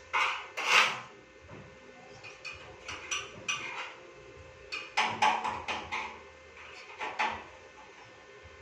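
Irregular knocks and clatters of hard objects being handled, in scattered groups with a busier run of them just past the middle.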